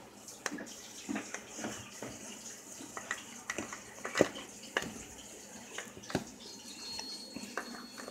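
Spoon stirring cookie dough in a plastic mixing bowl: irregular soft scrapes and knocks of the spoon against the bowl.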